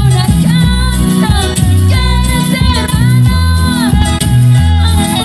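Live band playing an upbeat Latin-style praise song, with a steady bass line under keyboards and percussion, and a woman singing the lead, holding and bending long notes.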